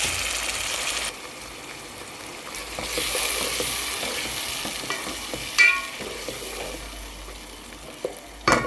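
Onions and ginger-garlic paste sizzling in hot oil and ghee in a pan as tomato paste is stirred in. The sizzle drops about a second in and swells again. A spoon strikes the pan with a ringing metal clink in the middle, and again near the end.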